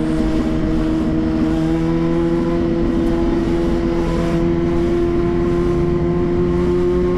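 Yamaha FZ6's 600 cc inline-four engine running under way at steady revs, its pitch creeping slowly upward, heard from on the bike.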